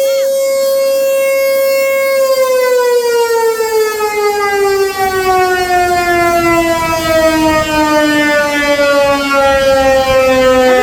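Outdoor tornado warning siren sounding during its routine scheduled test. It holds one steady tone, then from about two seconds in slowly falls in pitch as the siren winds down.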